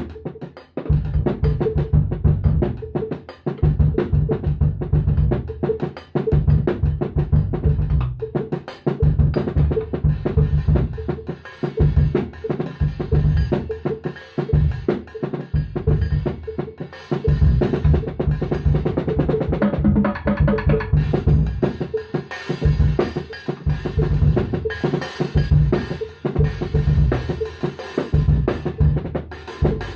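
Drum kit played continuously in a busy groove of bass drum, snare and tom strokes, with the cymbals growing brighter about two thirds of the way through.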